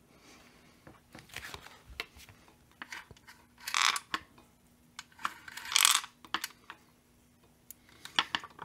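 Hands working on the plastic top cover of a Holzfforma G388 chainsaw: scattered light clicks and taps, with two short scraping rubs about two seconds apart in the middle and a quick run of clicks near the end.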